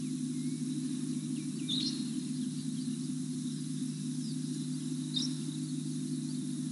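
Outdoor ambience of bird calls: a short high call repeated about every three and a half seconds, with faint chirps, over a steady low hum.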